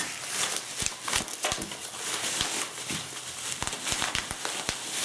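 Bubble wrap being ripped off and crumpled, an irregular run of crinkling and crackling.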